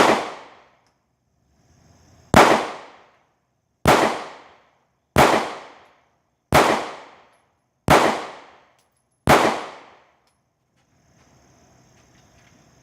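Seven shots from a Smith & Wesson M&P Shield 9mm pistol, fired one at a time about one and a half seconds apart, each report ringing out briefly. The seven shots empty its seven-round flush magazine.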